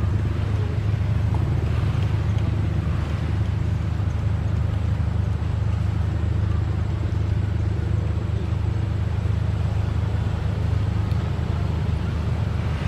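A steady low rumble that holds at an even level throughout, with no distinct events.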